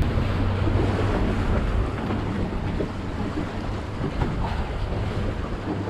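A boat engine running with a steady low hum, under wind noise on the microphone and the wash of rough sea.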